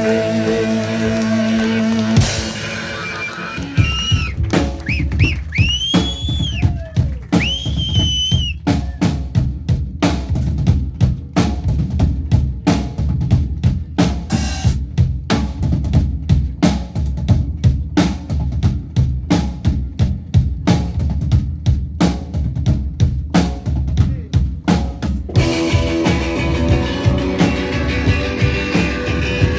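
Live rock band in a drum-led passage: a held chord breaks off about two seconds in, then the drum kit keeps a steady beat with bass-drum hits under it, with a few high gliding tones shortly after. The full band with guitars comes back in near the end.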